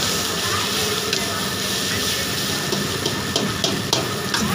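Noodles sizzling in a hot wok while a metal ladle stirs and tosses them, clanking sharply against the wok once about a second in and several times in quick succession near the end.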